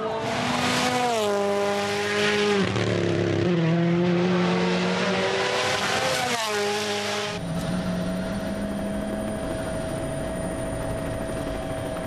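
Toyota GR Yaris Rally1 car's 1.6-litre turbocharged four-cylinder engine at full speed, its note stepping and sliding in pitch through gear changes as it passes. About seven seconds in, this gives way to a steadier, fainter engine sound from a rally car further off.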